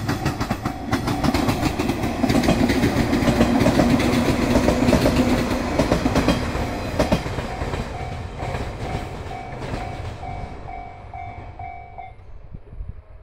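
A 113 series electric train passing over a level crossing, its wheels clattering over the rail joints, loudest for a few seconds and then fading as it goes away. Over it the crossing's warning bell rings in a steady repeating ding until it stops near the end.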